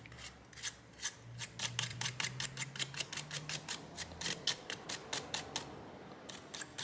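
Toothbrush bristles scrubbing in quick short strokes, about four or five a second, flicking crumbled dry thermal paste off a laptop circuit board; the strokes stop briefly near the end, then start again.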